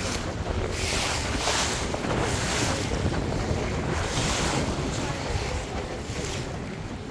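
Small boat under way: wind buffeting the microphone and water rushing past the hull over a low engine rumble. The rush of wind and water swells and fades every second or so.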